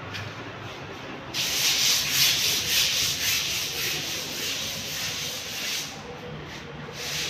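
A harsh rubbing, scraping hiss that starts suddenly about a second and a half in, stops about six seconds in, and starts again near the end.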